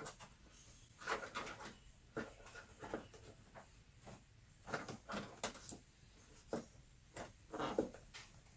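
Irregular clicks, taps and clunks of hand tools and plastic trim parts being handled while unbolting the front-end pieces around a car's headlight.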